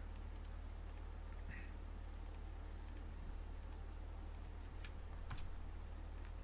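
A few faint, scattered clicks from a computer keyboard, over a steady low electrical hum.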